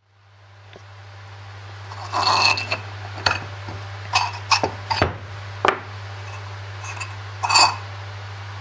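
Metallic clinks and knocks of a steel Land Rover half shaft and its parts on a steel workbench, about seven irregular strikes, some ringing briefly, over a steady low hum.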